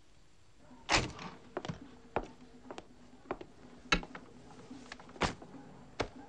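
A series of about nine sharp knocks and thuds at irregular intervals, the loudest about a second in, with a faint steady hum underneath.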